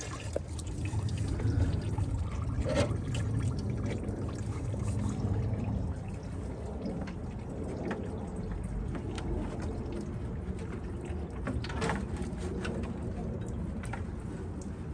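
Engine coolant pouring out of a Jeep Grand Cherokee WK2's disconnected lower radiator hose as the cooling system drains, a steady splashing trickle with a few light knocks.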